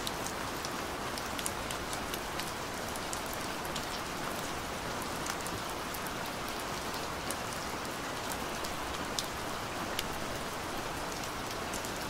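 Steady rain: a continuous hiss with scattered sharp ticks of single drops.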